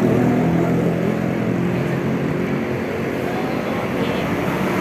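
Large bus's diesel engine running steadily with an even low hum.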